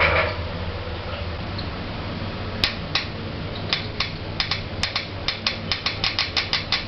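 Otis 2000 hydraulic lift running, a steady low hum with a run of sharp clicks starting about a third of the way in and coming faster toward the end.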